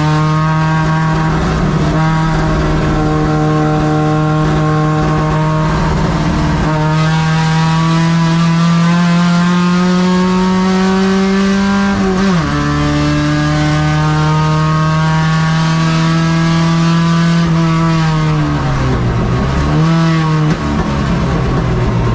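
Carbureted four-cylinder engine of a Chevrolet Caravan race car, heard onboard and held at high revs. The pitch climbs slowly, drops sharply about twelve seconds in and then holds steady; near the end the revs fall, dip and pick up again.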